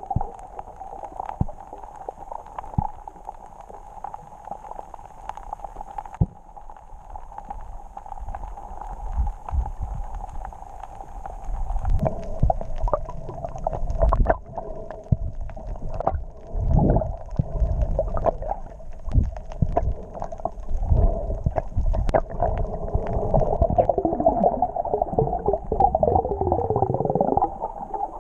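Muffled underwater sound picked up by a camera in a waterproof housing: low rumbling surges and gurgling of moving water and bubbles, with scattered clicks. It grows louder and busier about halfway through.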